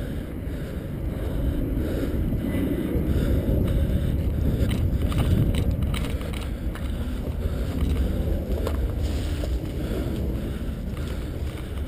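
Low, steady rumble of wind and handling noise on the camera microphone, with a few faint scattered clicks and knocks in the middle.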